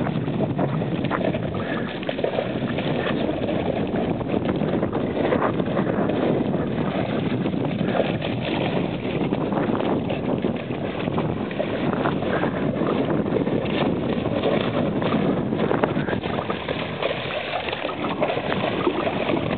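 Steady rush of wind on the microphone mixed with lake water splashing in the shallows, where a dog is wading and splashing.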